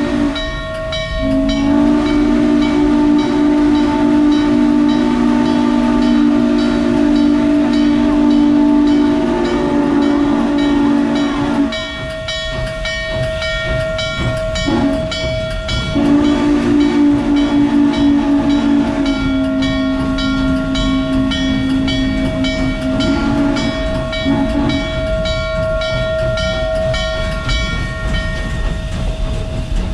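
Norfolk & Western 611's steam whistle blowing: one long blast of about ten seconds, then after a short gap a second run of about nine seconds in which the chord changes. Under it runs the moving train, with a steady, even clicking beat.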